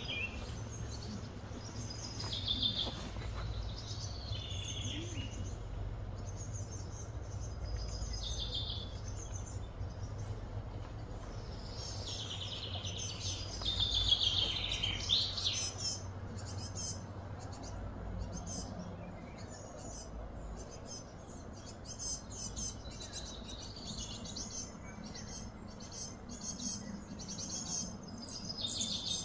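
Wild birds chirping and twittering over a steady low background hum, with a louder run of calls about halfway through.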